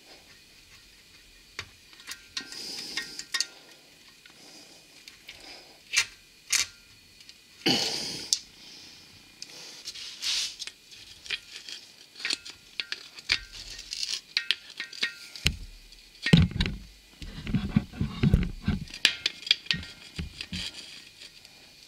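Metal hand tools clicking, scraping and knocking against a seized engine block heater in a Duramax diesel block as it is worked loose, with a cluster of heavier, lower knocks about sixteen to nineteen seconds in.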